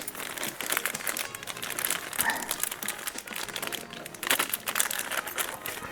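Crinkling and rustling with many small irregular clicks as kayak foot-pedal parts and a spanner are handled.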